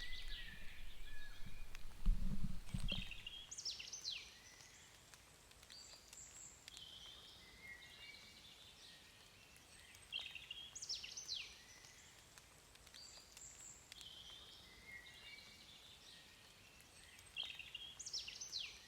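A songbird singing the same short phrase three times, about seven seconds apart, each with quick high sweeps dropping in pitch, over a faint steady hiss. A low thump of handling noise about two seconds in.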